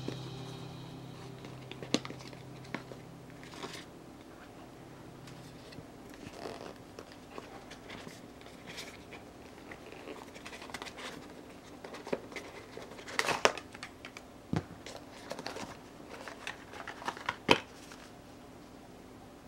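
Cardboard phone box and its paper inserts handled and opened: scattered clicks, taps and rustles, with a few sharper knocks of card against card about two seconds in and again near the end. Background music fades out in the first few seconds.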